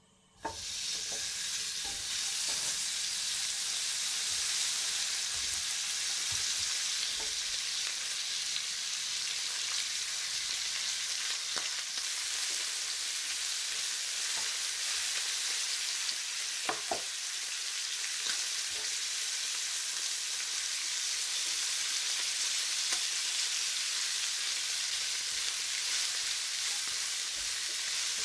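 Sliced pork belly sizzling in hot oil in a nonstick frying pan. The sizzle starts suddenly about half a second in as the pork goes into the pan, then holds steady, with a few light taps of the chopsticks against the pan as the slices are turned.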